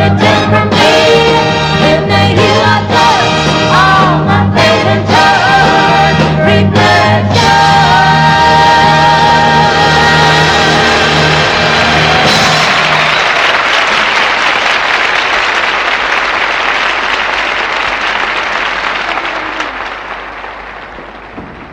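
A live band and singers finish a song on a long held note, then the audience applauds from about halfway through, the applause fading away near the end.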